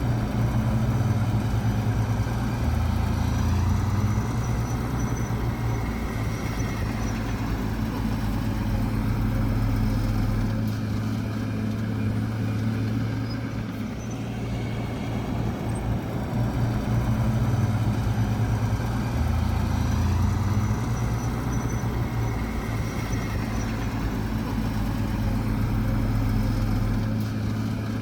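Heavy diesel engine of an earthmoving machine running steadily. Its low drone steps up and down in pitch as the load changes, and the pattern repeats about every 16 seconds.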